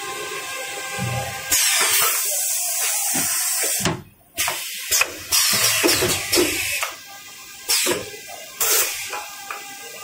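Automatic toilet-roll packing machine running, with a steady machine whine and hisses of compressed air from its pneumatic cylinders. There is a long hiss of about two seconds starting about a second and a half in, then several short hisses.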